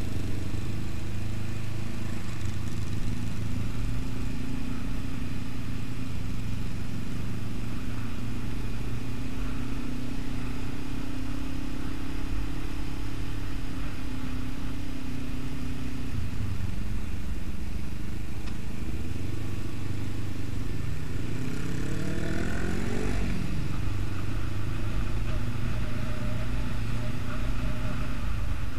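Motorcycle engine running steadily at low town speed. About 21 seconds in it revs up, rising in pitch, then falls back sharply about two seconds later.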